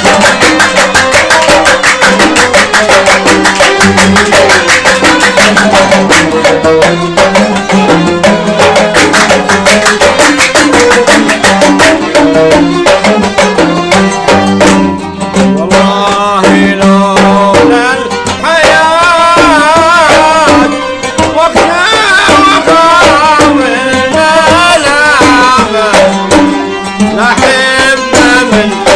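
Kuwaiti sawt ensemble playing an instrumental passage: violins and qanun carrying a wavering melody over a busy, fast hand-drum beat.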